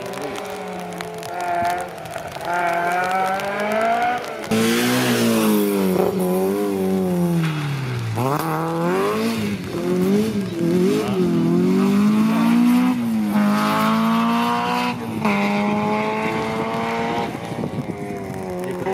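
Rally car engines at full throttle: one car pulling away, its revs climbing and dropping at each gear change, then a second car arrives much louder about four seconds in, revs falling in jerks as it brakes and downshifts, before accelerating hard away through its gears, revs rising and falling back at each upshift.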